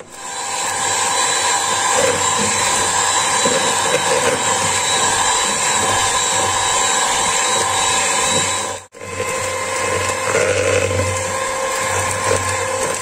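Electric hand mixer running steadily with a constant whine, its beaters churning flour into creamed butter and sugar; it cuts out for a moment about nine seconds in.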